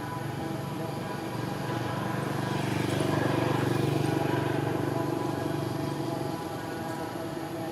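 A motor vehicle's engine running steadily, growing louder to a peak about halfway through and then fading back, as of a vehicle passing by.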